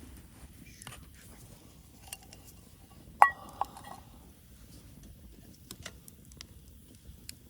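A metal cup or pot clinks once against cookware about three seconds in, ringing briefly, with a lighter tap just after. Faint scattered ticks around it.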